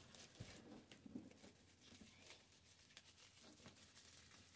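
Near silence, with faint rustles and a few light clicks of deco mesh and pipe cleaners being handled on a wire wreath frame.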